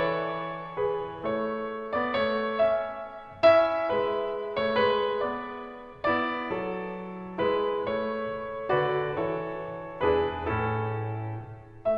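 Solo piano music: slow chords and single notes struck about once a second or two, each ringing out and fading.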